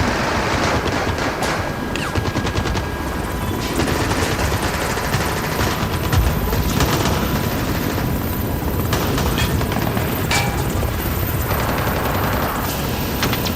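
Close firefight sound effect: continuous bursts of machine-gun and rifle fire, many shots overlapping throughout.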